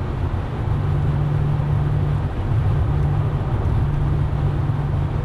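Inside the cabin of a G-Power BMW M5 Hurricane RS, its twin-supercharged V10 drones steadily while the car cruises at a constant speed of about 160 km/h, with steady road and wind noise.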